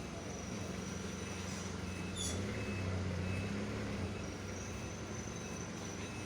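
A steady low hum of an engine running, growing louder for a couple of seconds partway through, with a brief high chirp about two seconds in.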